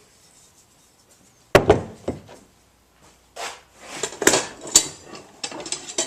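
Metal tools clattering and knocking against each other in a tool box as they are rummaged through and handled: one sharp knock, then a run of clinks and knocks with two louder strikes.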